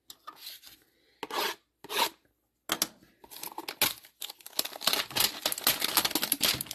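A cardboard hanger box of baseball cards being torn open by hand: two short rips, then a few seconds of continuous tearing and crinkling as the pack is worked out of the box.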